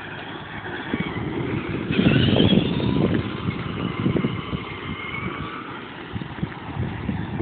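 Brushed 775 electric motors of an E-Maxx RC monster truck running under throttle: a whine that rises and falls in pitch, over crunching and rumbling from the tyres on dirt. It is loudest about two to three seconds in.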